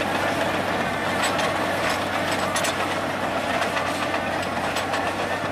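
Bulldozer's engine running steadily under load as it pushes its blade through deep snow, with a faint clatter over it.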